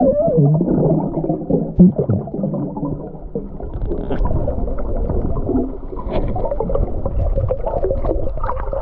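Muffled gurgling and bubbling of water heard underwater, with wavering watery tones and a few knocks.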